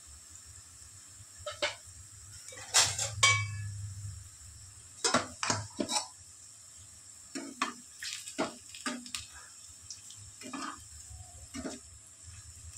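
Metal utensil clinking and scraping against a kadhai while potato pakoras fry in oil. About a dozen irregular strikes, the loudest a couple of sharp clanks around three seconds in.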